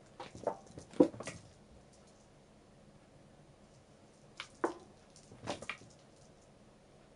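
Cat at play: a few soft knocks and taps from its paws and whatever it bats on the floor, in two bunches, about a second in and again around five seconds in.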